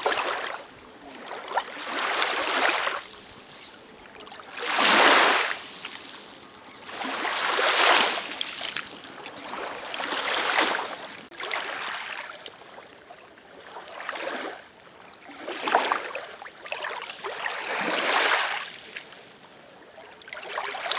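Small river waves lapping and breaking on a sandy, pebbly shore, each wash of water swelling and fading about every two to three seconds.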